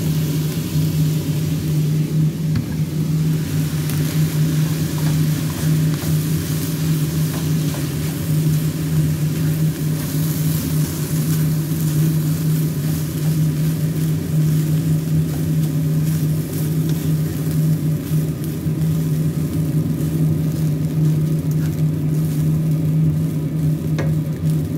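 Steady low mechanical hum with a noisy hiss over it, while a wooden spatula stirs and scrapes fried rice in a metal frying pan on a gas hob.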